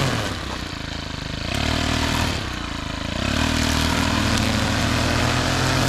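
A gasoline engine running steadily, its speed dipping twice and coming back up each time, as when the throttle is eased off and reapplied.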